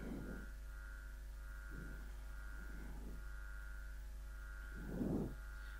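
Steady electrical mains hum with a faint high steady tone above it, and a few faint soft sounds, the clearest about five seconds in.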